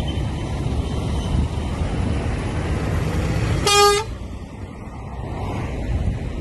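Steady rushing noise with a low rumble, cut through a little under four seconds in by one short, loud car horn toot.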